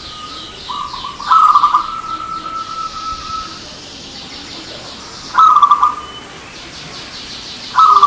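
Zebra dove (perkutut) cooing: a quick bubbling phrase about a second in that runs into a long held note, then shorter bubbling phrases about five seconds in and again at the very end. Faint, rapid, high-pitched chirping runs underneath.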